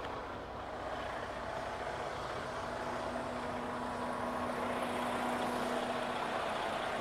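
Freightliner semi truck's diesel engine idling with a steady hum.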